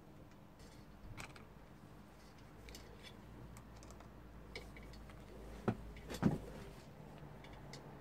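Light clicks and taps of clip leads and a push-button remote starter switch being handled at a battery terminal, with two sharp clicks about half a second apart a little after halfway through.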